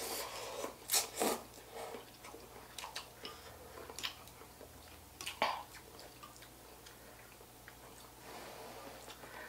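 Two people slurping soupy instant noodles from bowls in short, irregular bursts.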